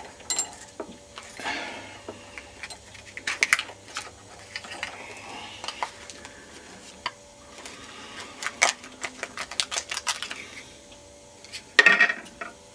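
Hard plastic clicking and clattering as a laptop charger's cracked-open case is handled and its halves pulled apart, with irregular sharp taps, quick clusters of clicks and a few scraping rubs.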